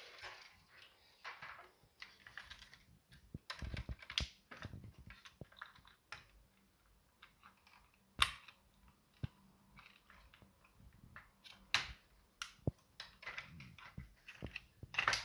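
Irregular small clicks and taps of plastic parts and circuit board being handled as a cassette deck's transport mechanism is lifted and its wires are freed, with a few sharper clicks spread through.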